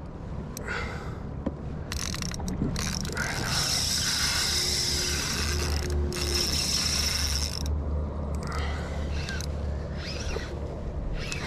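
Penn Clash spinning reel's drag giving line as a hooked fish runs. It comes in short spurts, then one long run of about four and a half seconds in the middle, then more short spurts.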